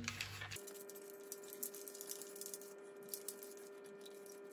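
Faint handling noise of a damp microfibre cloth being wiped over the plastic housing of a Dyson V15 floor head, with scattered light clicks and taps of the plastic, over a faint steady hum.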